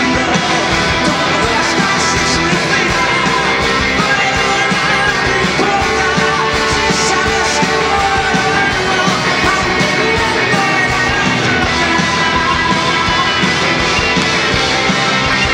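Live rock band playing loud and steady: electric guitars over a full drum kit, with no let-up.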